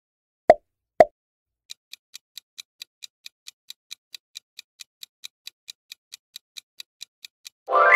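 Quiz countdown sound effect: two sharp pops, then a clock-style tick repeating evenly about four to five times a second. Near the end a ringing, pitched chime comes in as the answer is revealed.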